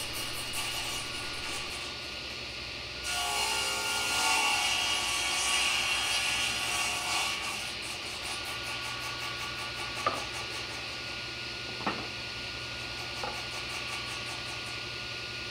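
Table saw running, with a board pushed through the blade on a crosscut sled. About three seconds in, the blade cuts across the board for about four seconds with a louder whine, then the saw runs on free. Two light knocks come a little later.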